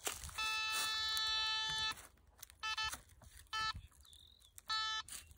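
AZIZ K-37 gold detector sounding its electronic target tone over a buried metal target. One long beep of about a second and a half comes first, then short beeps in quick pairs and a longer beep near the end.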